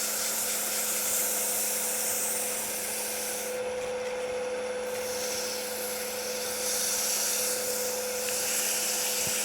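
320-grit sandpaper held against a cherry spindle turning on a wood lathe: a steady rubbing hiss over the lathe's even motor hum. The paper is still cutting, throwing plenty of dust.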